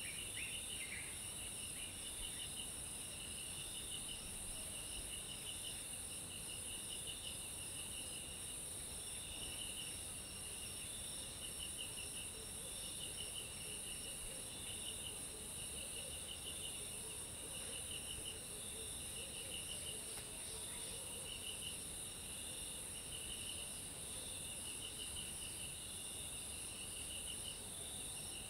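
Steady chorus of insects: a continuous high buzz with a lower pulsing trill that repeats in bursts about every second.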